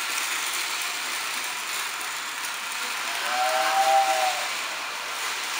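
American Flyer accessory whistle sounding one two-note blast of a little over a second, about three seconds in, set off by touching a wire to its supply. Beneath it, the steady running of a Lionel O-gauge train on the track.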